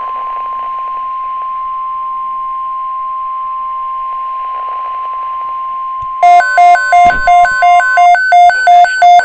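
NOAA Weather Radio's steady 1050 Hz warning alarm tone, the signal that an alert message follows, here a severe thunderstorm watch. About six seconds in, a louder rapid electronic beeping of about three to four beeps a second joins it. The beeping overlaps the tone until the tone stops at about eight seconds.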